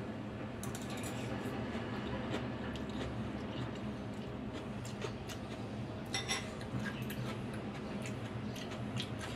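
Metal fork and spoon clinking against a ceramic bowl while instant noodle soup is slurped and eaten, with a cluster of clinks about six seconds in. A steady low hum runs underneath.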